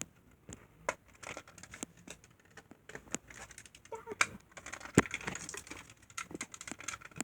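Plastic Bakugan toy clicking and knocking as it is handled and rolled on a smooth hard floor: scattered light taps, the sharpest about five seconds in.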